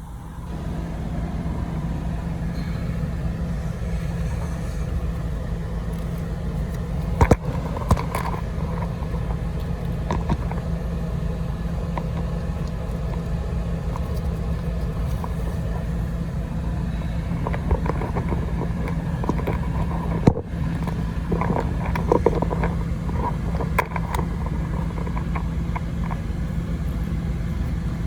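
Suzuki Every's small three-cylinder engine idling steadily, with a few sharp clicks or knocks along the way.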